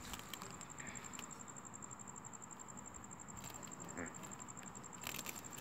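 Faint, steady high-pitched trill of a cricket, pulsing rapidly without a break, with a few soft taps and scuffs on concrete as a kitten paws at an insect.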